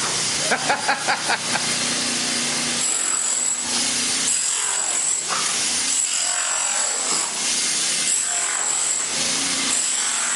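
Rented floor-removal tool ripping up wood flooring: a loud, steady rasping of wood and metal with a high hiss that swells and drops about every two seconds as the tool works forward. A quick rattle of knocks comes about a second in.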